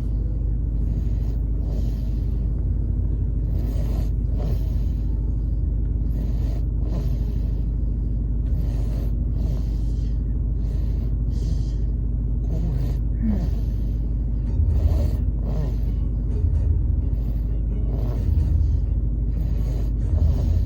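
A sleeping baby snoring in a moving car: a breathy snore about every two seconds over the car's steady low rumble.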